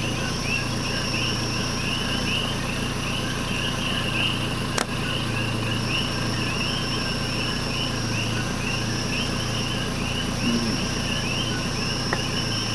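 Night chorus of insects and frogs: a dense, steady run of short high chirps, with a higher steady buzz that drops out about two seconds in and returns a few seconds later. A single click near the middle.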